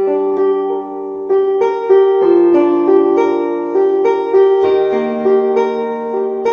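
Piano music: a melody of struck notes over held lower notes.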